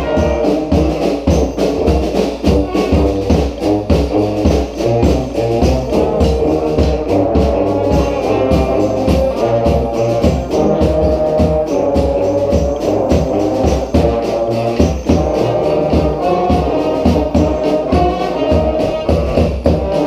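A brass band playing together: sousaphones, trombones, trumpets and saxophones over a bass drum and cymbal, with a steady beat.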